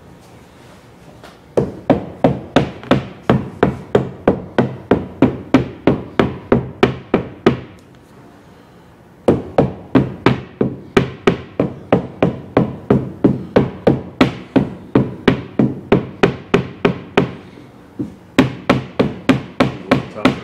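Rapid, even taps of a dead blow rubber mallet, about four a second, in three runs with short pauses between, driving the chrome windshield frame of a 1937 Cord down over new windshield glass to seat it in the channel.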